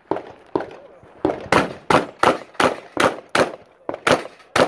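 Rapid gunfire in a practical shooting stage: a few quieter shots, then a fast string of about eight loud, sharp shots, roughly three a second, with one brief pause before the last two.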